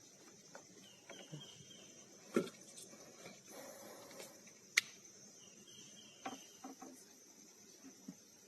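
Quiet ambience with a steady high insect drone, broken by a few small knocks and one sharp click about five seconds in.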